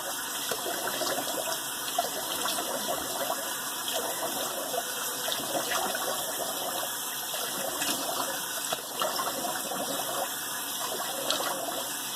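Cold water running from a bathroom tap into the sink, with hands splashing water onto the face to rinse.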